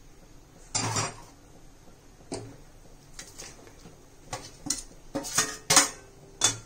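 Steel plate and a metal utensil clanking and scraping against a steel kadai as marinated raw chicken is tipped and scraped into it. The sharp metal knocks are spaced out at first and come close together in the last two seconds or so.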